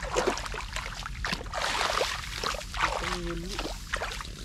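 Shallow water splashing and sloshing in quick irregular strokes, as fish are caught by hand in a rain-flooded field. A brief low pitched sound comes a little after three seconds in.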